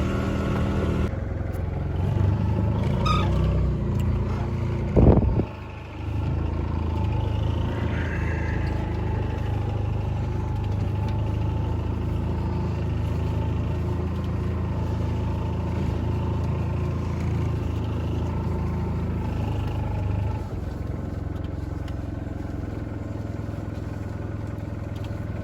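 Engine of a farm vehicle running steadily, with a brief loud knock about five seconds in.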